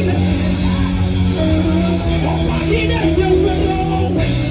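Live worship band music led by guitar, with wavering guitar lines over held low bass notes that change chord about two seconds in and again near the end.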